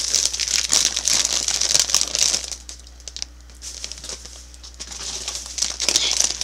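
Foil snack bags of cheese curls crinkling as they are handled and moved about. The crinkling is heavy for the first two seconds or so, thins out in the middle, and picks up again near the end.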